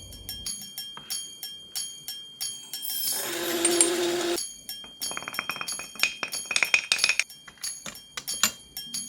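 Light clinks and taps of coffee gear being handled, glass and metal knocking together. A short noisy burst comes about three seconds in, and a quick run of rattling clicks about five to seven seconds in.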